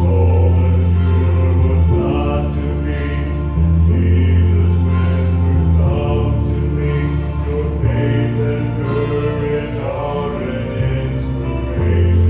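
A small group of men singing a hymn in harmony over sustained accompanying chords, the low bass notes changing about every two seconds.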